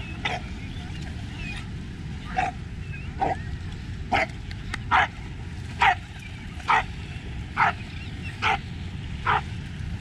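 A dog barking over and over, about ten short barks at a steady pace of roughly one a second, over a steady low background rumble.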